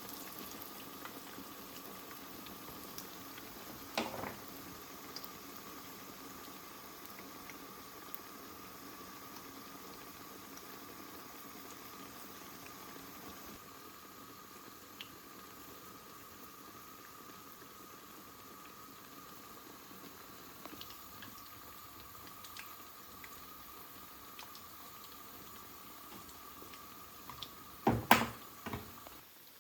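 Food cooking in a pot on the stove, bubbling steadily. There is a single sharp click about four seconds in, and a few louder knocks near the end, like a utensil against the pot.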